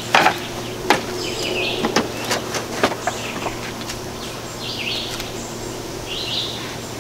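A few light clicks and knocks from handwork at the top of an aluminium telescoping ladder, most of them in the first few seconds, as duct tape goes across it. Birds chirp briefly four or five times over a steady low hum.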